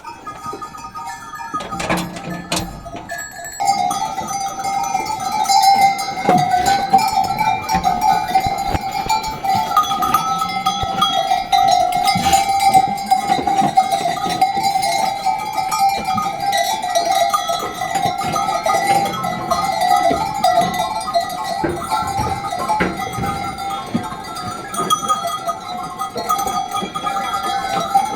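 Bells on a flock of sheep clanking and jangling continuously, many at once, growing louder a few seconds in as the flock comes close.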